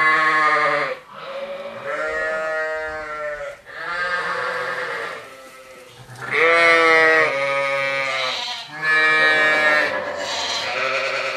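A run of long, wavering, bleat-like cries, about six in all, one after another with short gaps.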